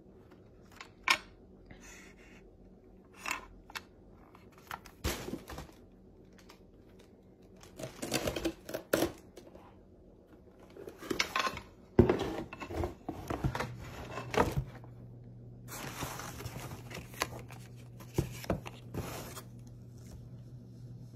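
Unboxing handling sounds: scattered knocks and clicks as an LED grow light panel and its parts are picked up and set down, with several stretches of packaging rustling. The sharpest knock comes about halfway through.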